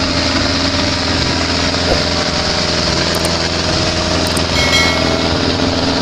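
Farm tractor diesel engines and forage-harvester machinery running steadily under load during a maize silage harvest: a continuous, even mechanical drone.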